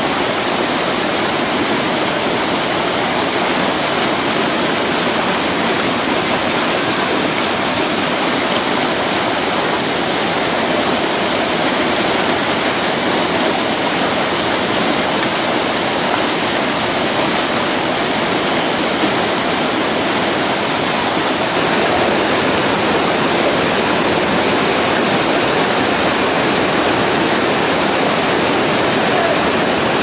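Waterfall and the stepped cascades below it: a steady, dense rush of falling water, a little louder about two-thirds of the way in.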